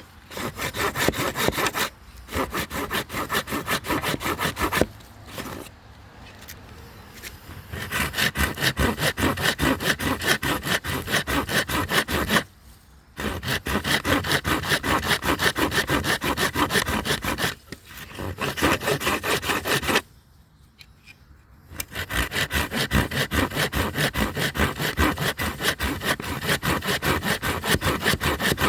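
Saw cutting with rapid, rhythmic back-and-forth strokes, in long runs broken by a few short pauses and one quieter stretch.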